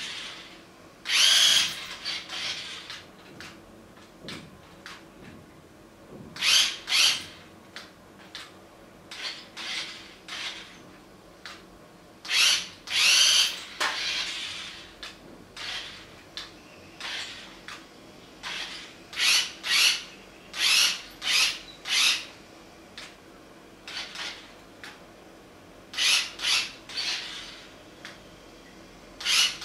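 Small electric motor of a toy RC vehicle whirring in short, irregular spurts, starting and stopping as the throttle is pressed and released, with some spurts doubled or in quick runs of three or four.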